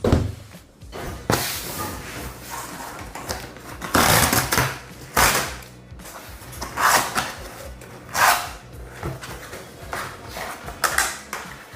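Packaging being handled during an unboxing: a run of irregular rustles, scrapes and knocks of cardboard and wrapping, with the loudest bursts near the middle.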